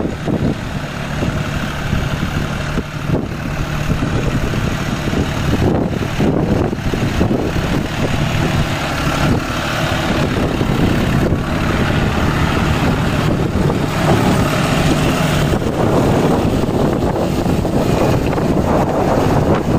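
John Deere tractor's diesel engine running steadily under load, with the Shaktimaan rotavator's blades churning through wet paddy mud.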